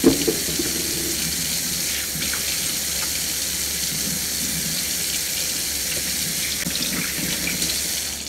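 Kitchen faucet running steadily into the sink while hands are rinsed under the stream, with a sharp knock at the very start and a few small clicks. The water is shut off right at the end.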